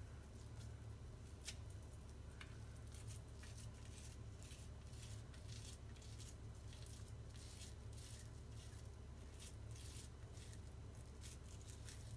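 Faint soft squishing and small irregular clicks of wet bulgur dough being hollowed out with a cucumber and shaped by hand, over a low steady hum.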